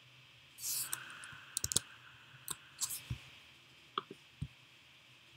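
Quiet, scattered clicking at a computer: about eight short, sharp clicks and taps spread over a few seconds, after a brief soft rustle, as the finished slideshow is closed.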